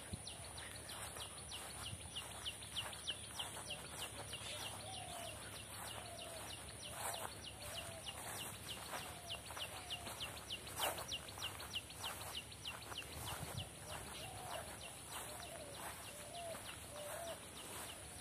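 Birds chirping: an even run of short high chirps, about three a second, with a lower, wavering call coming back now and then. A couple of soft knocks stand out, the louder one about eleven seconds in.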